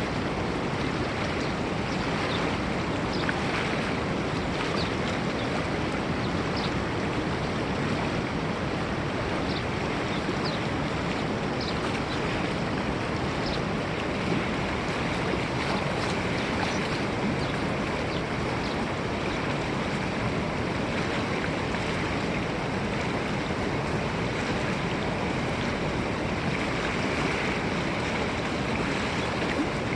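River water flowing, a steady, even rushing with no pauses.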